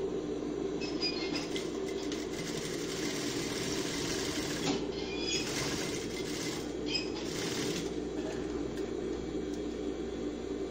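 Sewing machine running steadily, stitching a straight line of topstitching through pinned layers of fabric.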